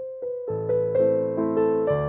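Background piano music starting up: a single note, then chords with low bass notes joining about half a second in.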